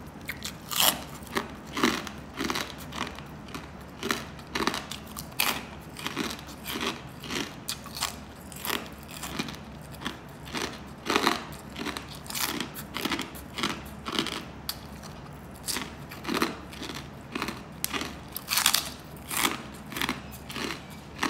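A person chewing crispy pork back-fat chicharon (deep-fried pork skin crackling), with a crisp crunch about twice a second.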